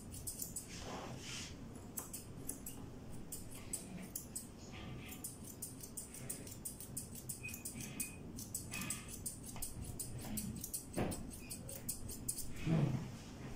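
Grooming scissors snipping quickly through a cat's long fur, in runs of rapid cuts with short pauses between them. A louder low knock comes about a second before the end.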